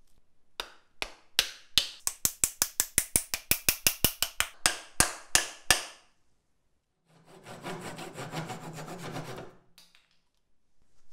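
A rapid run of about thirty sharp strikes, coming closer together, as a glued wooden wedge is driven into the eye of a hatchet's new wooden handle. After a short pause, about two and a half seconds of rasping as a saw cuts the wood.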